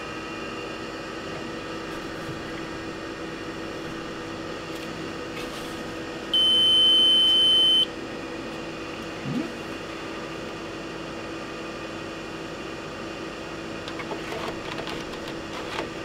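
HP 1650A logic analyzer giving a single loud, steady high beep about a second and a half long as it powers up, over the steady hum of its running fan. A few light clicks near the end.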